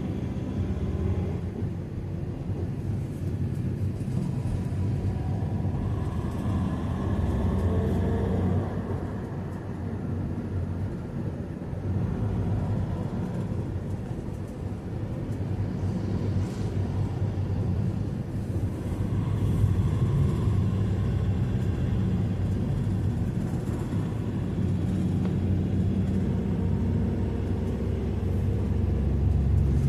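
Vehicle in motion: a steady low rumble of engine and road noise that swells and eases.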